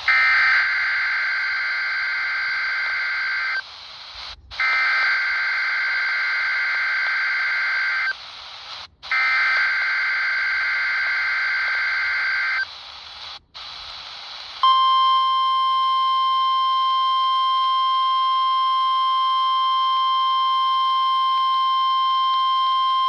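NOAA Weather Radio required weekly test coming through a RadioShack 12-254 weather radio: three screechy SAME digital header bursts of about three and a half seconds each, a second apart. Then a steady single-pitch warning alarm tone (1050 Hz) about fifteen seconds in, lasting around nine seconds, over a light hiss of reception noise.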